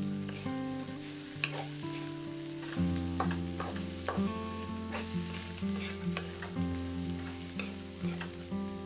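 A spatula scraping and knocking against a non-stick wok as chopped cassava leaves are stir-fried, with a steady sizzle under it. Held tones of background music sound underneath.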